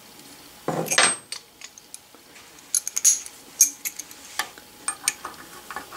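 Pliers clinking and scraping on a steel hot plate about a second in, then scattered light ticks and crackles from the hot plate and the steel bar heating on it.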